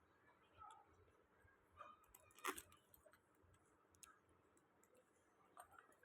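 Faint scattered clicks and light taps from small metal parts and tools being handled, with one sharper click about two and a half seconds in.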